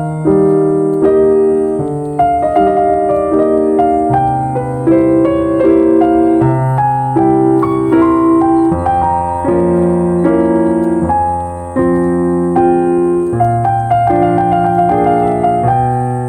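Background music: calm solo piano playing a gentle melody over sustained low notes.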